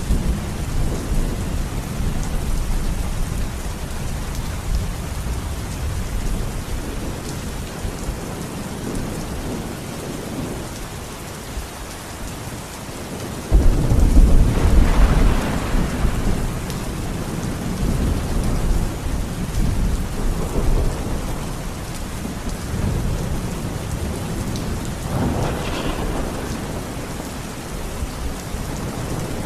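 Steady rain with thunder. Halfway through, a sudden loud thunderclap breaks into a rumble that rolls away over a few seconds, and a weaker rumble follows near the end.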